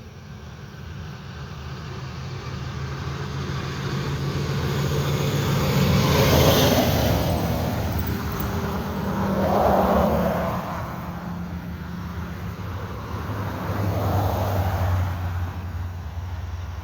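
Vehicles driving past on a road, three in succession: each swells in with engine hum and tyre noise and fades away, the first loudest at about six seconds in, the next near ten seconds and the last near fifteen seconds. No horn sounds.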